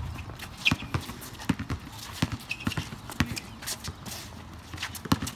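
A basketball bouncing and players' sneakers landing on an outdoor court, irregular thumps about two or three a second with a couple of brief high squeaks.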